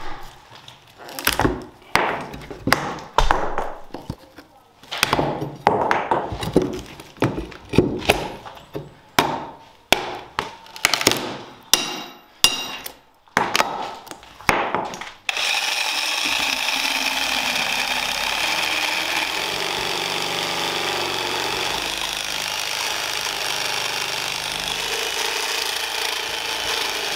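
Over a dozen hard knocks, roughly one a second, as a steel pry bar is driven against an old wooden tenon lodged in a post's mortise; some blows ring metallic. About fifteen seconds in the knocking stops and a handheld power saw starts, running steadily as it cuts at the joint.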